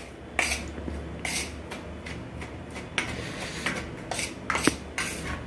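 Metal spoon scraping and stirring dry gram flour around a stainless steel plate, in a run of irregular scrapes of metal on metal.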